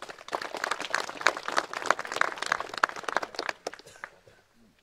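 A small crowd clapping, a quick dense patter of hand claps that dies away after about four seconds.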